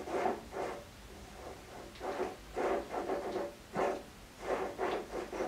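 Standard Modern 10-inch lathe spindle turned by hand in short strokes, making a series of short, rough scraping sounds. It is the noise of the spindle's outboard bearing, which sounds worn and keeps the spindle from turning freely.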